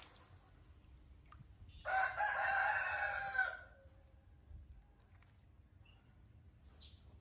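A rooster crowing once, a drawn-out call of about a second and a half that drops in pitch at its end. Near the end comes a short, high-pitched rising squeak.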